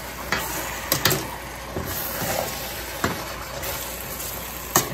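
A spatula stirring thick, mushy curried butternut squash in a stainless steel pot, over a steady hiss from the hot, steaming pot. The spatula knocks sharply against the pot a few times, about a second in and again near the end.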